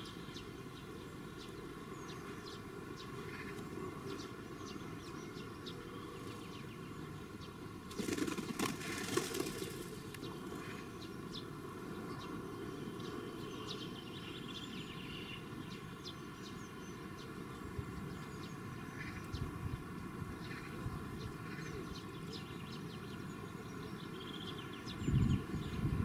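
Outdoor ambience: a steady low rumble of distant traffic with faint, scattered small-bird chirps. A louder rush of noise lasts about two seconds starting around eight seconds in, and a couple of low thumps come near the end.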